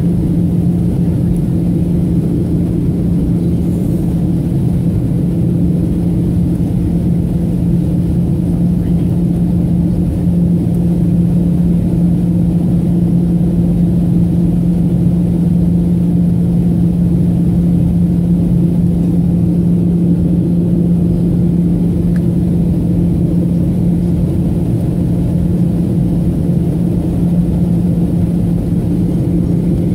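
Steady in-cabin drone of a Boeing 737-700 in flight, its CFM56-7B turbofan engines and the airflow making a loud, even rumble with a constant low hum.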